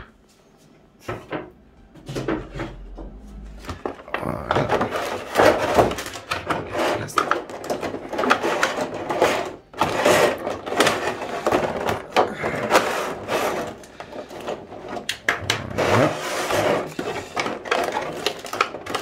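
Cardboard figure box and plastic packaging being handled and opened, a dense run of rustling, crinkling and clicks that starts about four seconds in.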